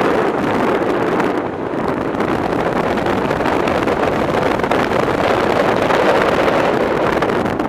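Wind rushing over the microphone of an action camera mounted on the outside of a moving BMW Z3 convertible: a loud, steady rush with no clear engine note.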